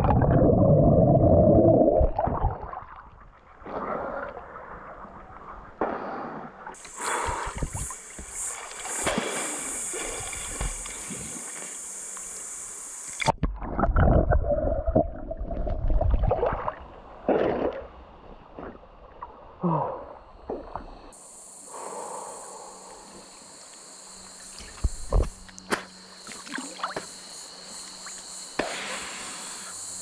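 Water splashing and gurgling around a swimmer in a creek swimming hole, loudest in the first two seconds and again around fourteen to sixteen seconds. A steady high insect drone runs through some stretches.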